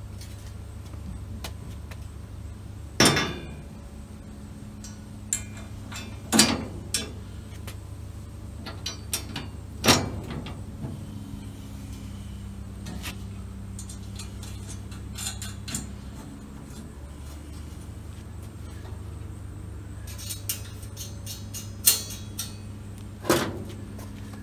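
Steel door frame clanking and clinking against the car body's sheet metal as it is fitted into the door opening: a handful of sharp metal knocks, the loudest about 3, 6.5, 10 and 22 seconds in, over a steady low hum.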